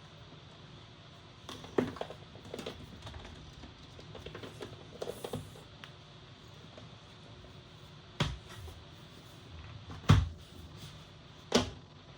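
Handling noise: a run of light clicks and scrapes in the first half, then three separate sharp knocks, the loudest about ten seconds in.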